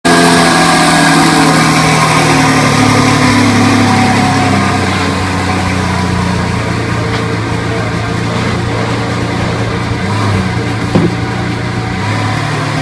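Lamborghini Veneno Roadster's 6.5-litre V12 running at a raised idle that drops in pitch and settles to a lower, steadier idle about four or five seconds in. One short sharp sound comes near the end.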